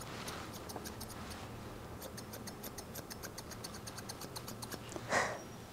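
Thinning shears snipping through a Shih Tzu puppy's coat in quick runs of light clicks, several a second, pausing briefly about a second and a half in, as the coat is blended. A short soft noise near the end.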